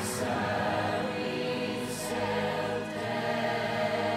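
Background music: a wordless choir holding sustained notes over low held tones, with a soft high swish about every two seconds.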